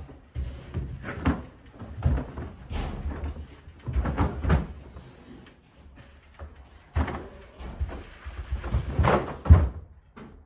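A box spring being brought down a carpeted staircase: a series of irregular thumps, knocks and scrapes as its wooden frame bumps the steps and walls, loudest about nine seconds in.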